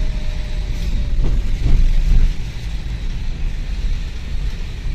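Mercedes Vito van driving slowly over a broken, washed-out road, heard from inside the cab: steady low engine and road rumble, louder for a moment about two seconds in.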